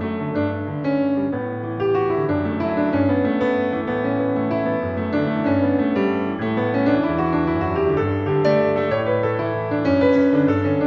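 Solo jazz piano playing, with bass notes and chords under the melody.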